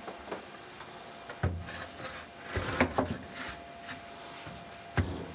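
MDF panel being handled and set into the gap beside a gas range: the board rubs and scrapes against the range and cabinet, with a knock about a second and a half in, a cluster of knocks around three seconds, and another near the end.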